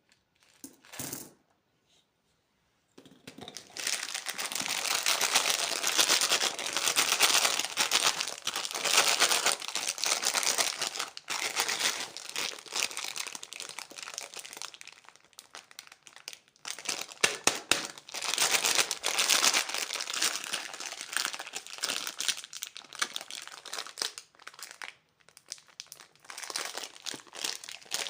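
Candy wrapper packaging being crinkled and handled. The crinkling starts about three seconds in, runs dense for a while, then turns more broken with sharp crackles.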